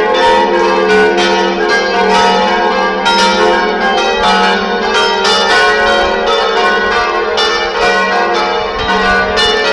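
Church bells of a parish church ringing the midday peal: several bells struck in quick, continuous succession, their tones overlapping and ringing on.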